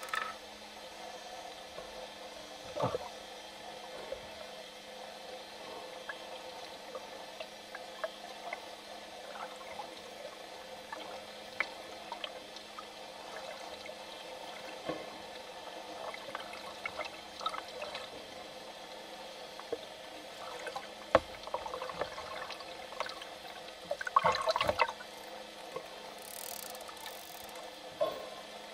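Underwater ambience: a steady watery hiss with a faint low hum, broken by scattered short clicks and pops. A louder crackling burst comes about three-quarters of the way through.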